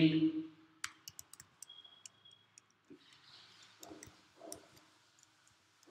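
Computer keyboard typing: scattered, fairly quiet key clicks at an irregular pace.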